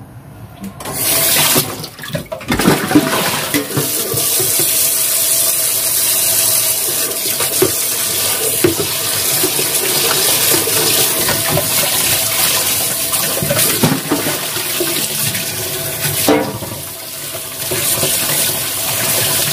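Kitchen tap turned on about a second in and running hard, splashing into a steel bowl and then over raw chicken pieces in a plastic colander as hands rinse them.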